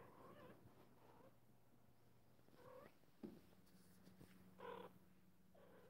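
Faint, short cat mews, about five of them, the clearest one near the end, with a single soft click a little past halfway.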